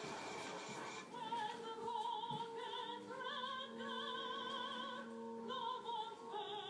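Operatic singing with strong vibrato over music, coming in about a second in and holding long notes.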